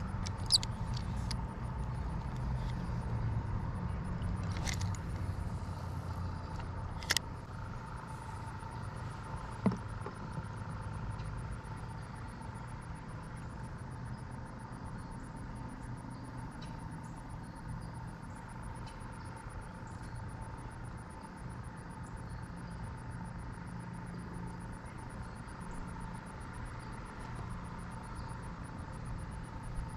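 Steady low rumble of distant road traffic, a little louder in the first ten seconds, with a few sharp clicks near the start.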